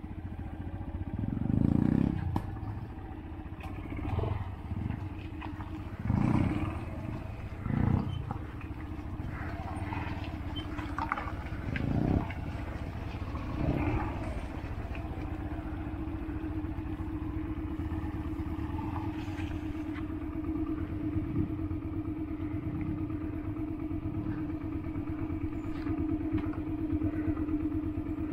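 Yamaha XTZ 125 single-cylinder four-stroke engine running under the rider on a rough dirt trail. The throttle is opened in several short bursts in the first half, with knocks and rattles from the bike. Later it runs at a steadier pace.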